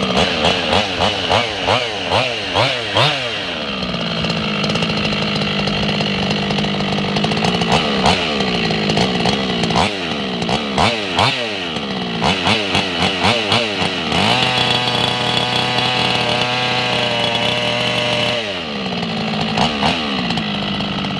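Losi 5T's two-stroke gas engine idling, with runs of quick throttle blips that rise and fall in pitch. About two-thirds of the way through it is held at high revs for about four seconds, then drops back to idle. The owner calls it not too loud.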